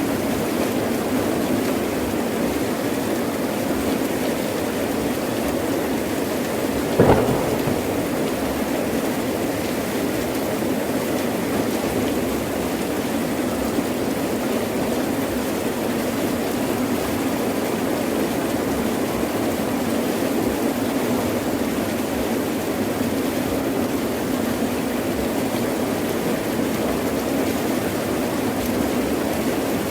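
Heavy rain falling steadily, with one short sharp crack about seven seconds in.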